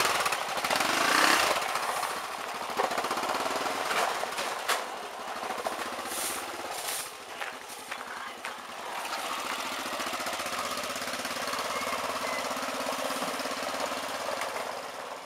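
Four-wheeler (ATV) engine running as it is ridden, louder in the first couple of seconds and then steadier, with a few sharp clicks and knocks along the way.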